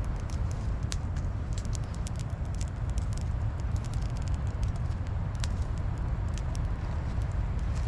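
Wood fire crackling in scattered sharp snaps, over a steady low rumble of wind on the microphone.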